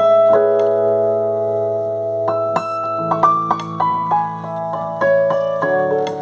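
Piano being played slowly: a low bass note held under sustained chords while single melody notes are struck one after another and left to ring.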